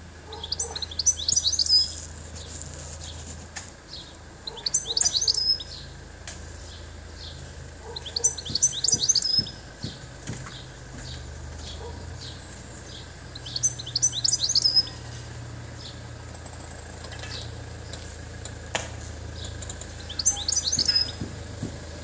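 European goldfinch singing: five short phrases of rapid high twittering notes, each about a second long and a few seconds apart.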